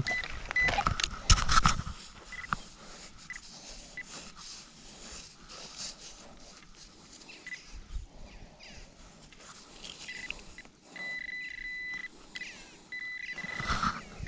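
Handheld metal-detecting pinpointer probed into dug sand, giving two steady high beeps of about a second each near the end as it locates a metal target. Sand scraped by hand, with knocks from handling in the first two seconds.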